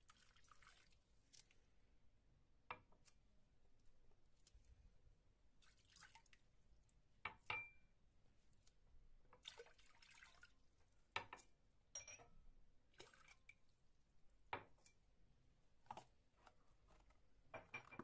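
Faint water being poured from a drinking glass into a glass bowl in several short pours, with light dripping and a few small sharp ticks, likely glass touching glass.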